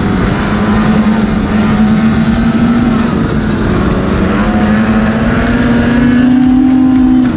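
Arctic Cat Riot snowmobile's two-stroke engine running at a steady speed on the trail, its pitch climbing a little near the end, with background music over it.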